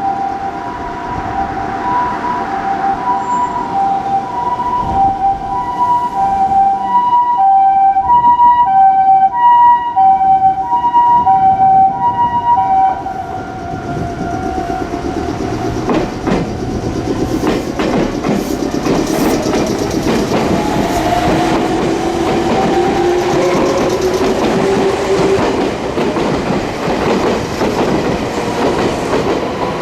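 Japanese ambulance siren sounding its two-tone hi-lo wail, alternating between two pitches, and cutting off about thirteen seconds in. A Meitetsu train then passes over the level crossing, its wheels clacking over the rail joints, with a rising whine.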